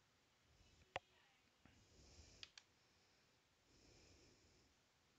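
Computer mouse clicking: one sharp click about a second in and two fainter clicks about a second and a half later, otherwise near silence.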